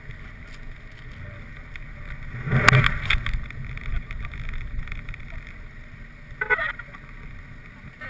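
Car driving on snowy streets: steady low engine and road rumble. A loud brief noise comes about two and a half seconds in, and a shorter one about six and a half seconds in.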